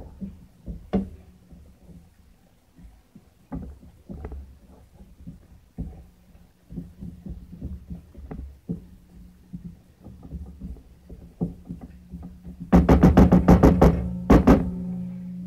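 A spatula knocking and scraping against a wok as food is stirred, in scattered taps over a steady low hum. Near the end comes a louder burst of rapid clattering, about two seconds long.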